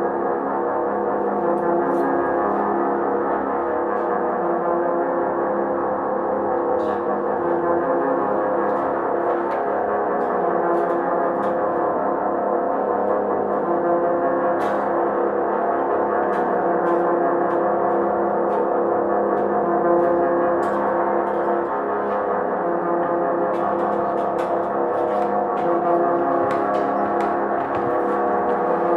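Droning ambient music of sustained, gong-like ringing tones that holds steady throughout, with a scattering of faint small clicks over it.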